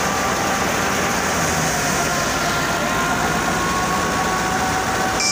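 Wheat thresher running off a Fiat 640 tractor's diesel engine: a steady, dense mechanical din of the engine, the spinning threshing drum, belts and pulleys, with a few faint steady hum tones.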